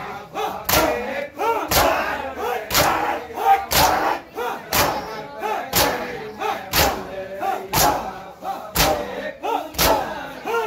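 A crowd of mourners doing matam, beating their bare chests with open hands in unison: one loud slap about every second. Men's voices shout between the strikes.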